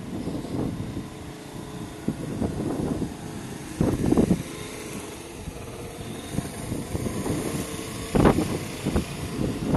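A motor scooter's engine running as it passes along the street, with wind on the microphone and two louder thumps about four and eight seconds in.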